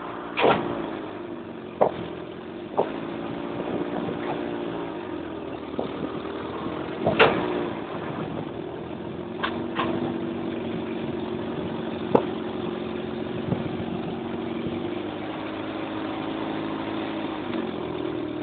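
1974 Mini 1000's 998 cc A-series four-cylinder engine running as the car is driven, heard inside the cabin, its pitch rising and falling with the revs. Sharp knocks and clunks come every few seconds, the loudest about seven seconds in.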